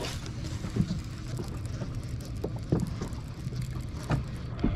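Small waves lapping against a bass boat's hull, with wind on the microphone, a low steady hum underneath and a few light knocks.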